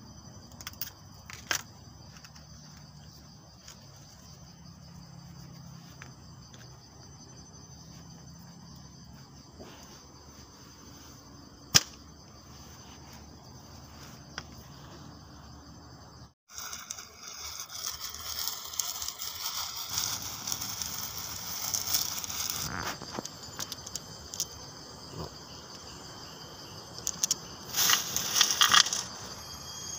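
Crickets chirping in a steady high drone, with scattered sharp clicks of handwork, including scissors snipping rubber slingshot bands about a second in. About halfway through the background grows louder and busier, and near the end comes a short cluster of louder clicks and rustles.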